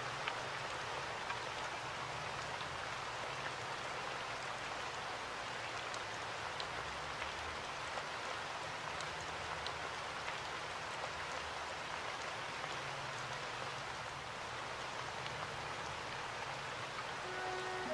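Steady rain-like hiss with faint scattered ticks and a low hum underneath.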